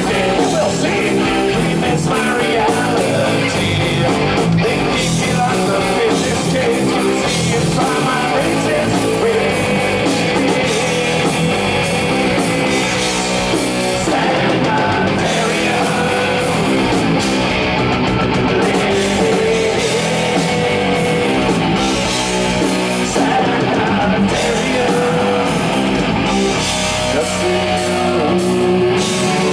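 Live heavy metal band playing at full volume: distorted electric guitars over bass and a drum kit.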